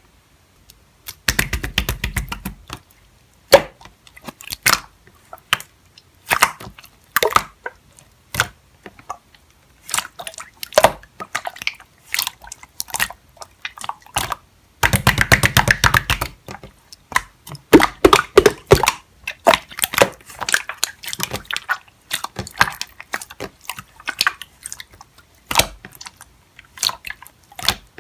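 Slime being squeezed and poked by hand, giving irregular sticky pops and crackling clicks, with two denser stretches of squishing about a second and a half in and again about fifteen seconds in.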